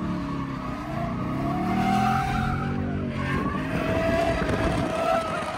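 A 2022 Ford Mustang GT's Coyote V8 revving hard in a drift, its tyres squealing. The revs climb over the first two seconds and drop off about three seconds in, while the squeal holds on, wavering in pitch.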